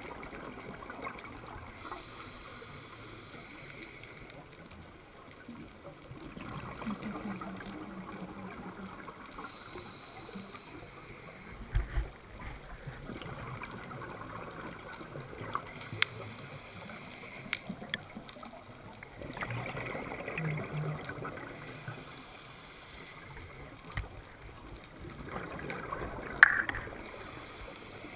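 Scuba diver breathing through a regulator underwater: a short hiss on each inhale, then a longer stretch of bubbling on each exhale, about one breath every six seconds. A few sharp knocks, the loudest near the end.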